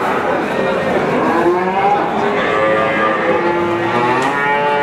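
Several calves mooing at once, their calls at different pitches overlapping without a break.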